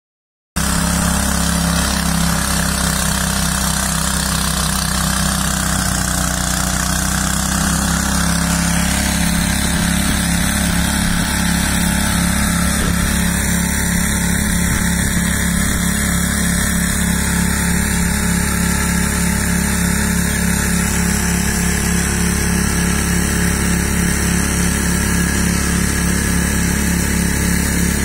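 Engine of a radio-controlled mower running steadily at a constant speed, cutting in abruptly about half a second in.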